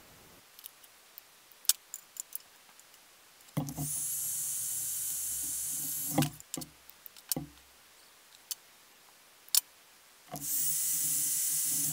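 Electric heat gun blowing, switched on twice for a couple of seconds each to shrink heat-shrink tubing over crimped wire connections: a steady rush of air over a motor hum. Small clicks and taps from handling the wires and parts between the two runs.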